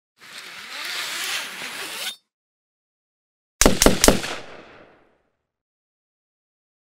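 Intro sound effect: about two seconds of hissing noise, then three sharp gunshot-like bangs in quick succession, about half a second in all, that fade out.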